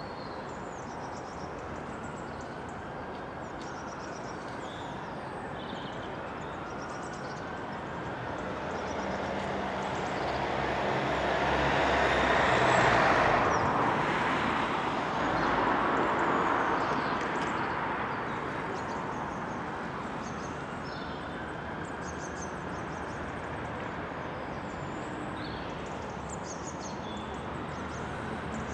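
A road vehicle passes close by, its sound swelling to a peak about halfway through, dipping briefly and then fading, over a steady background of traffic. Small birds chirp throughout.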